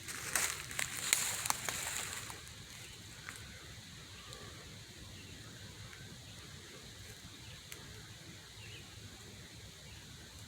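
Crackling rustles for about the first two seconds, then quiet outdoor ambience with a faint, steady high buzz of insects.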